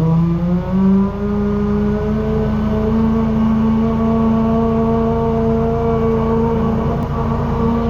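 Engine of a high-pressure drain jetter throttling up. Its pitch rises quickly, steps up once more about a second in, then holds at a steady high speed.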